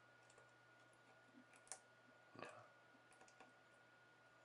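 Faint clicks and taps of a sewing pin and fingertips against a Mac Mini's case as pins are pushed into the side seam to release the hooks that hold the lid. Two sharper clicks come about halfway through.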